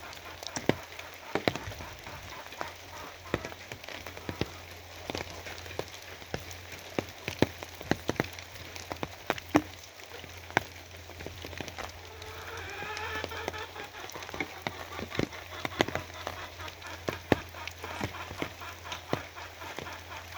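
Steady rain with large drops striking a hard surface in irregular sharp ticks. About twelve seconds in, a brief wavering animal call rises faintly above the rain.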